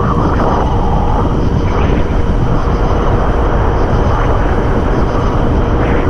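Strong wind roaring over the action camera's microphone, mixed with the rush of breaking surf as a kiteboard rides out through storm foam.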